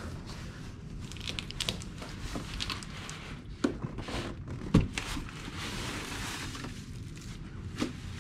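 Plastic wrapping and cardboard packaging rustling and crinkling as parts are lifted out of a monitor's shipping box, with a few sharp knocks, the loudest a little under five seconds in.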